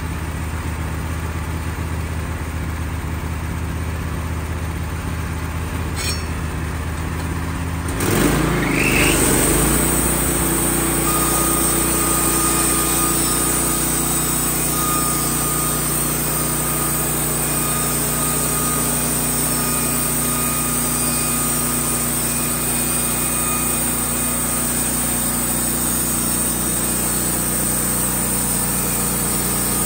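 Wood-Mizer LT15 bandsaw mill's engine idling, then speeding up about eight seconds in as the band blade is engaged. It then runs steadily and louder under load, with a thin steady whine, while the blade saws along a poplar board to edge it.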